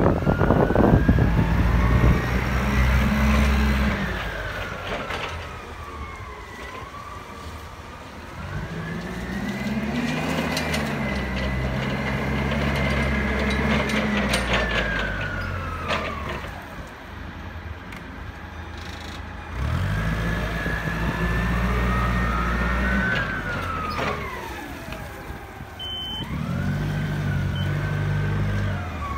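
Hyster S35FT propane forklift driving about, its engine revving up and dropping back four times. A whine rises and falls in pitch as it speeds up and slows.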